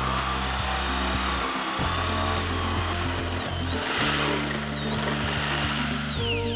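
Corded Bosch GSB 13 RE impact drill boring a 25 mm wood bit through thick angelim pedra hardwood. The motor's whine rises and falls with the load and winds down near the end as the bit is pulled free. Background music plays along.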